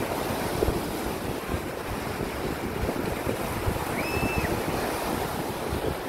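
Small Gulf of Mexico waves breaking and washing up a sandy shore in a steady, continuous wash, with wind buffeting the microphone.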